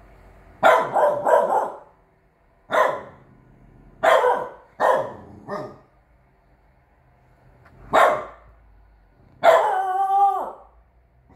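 Three-month-old chow chow x French bulldog puppy giving alert barks: a quick run of three, then single barks spaced a second or so apart, and near the end one longer, drawn-out howling bark with its head raised.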